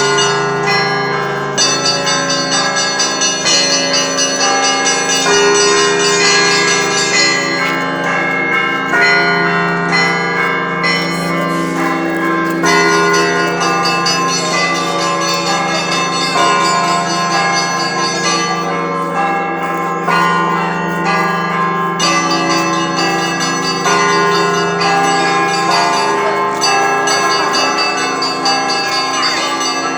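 Russian Orthodox monastery bells rung together in a festive feast-day peal: quick, busy strokes on small high bells over the long hum of larger bells, ringing on without a break.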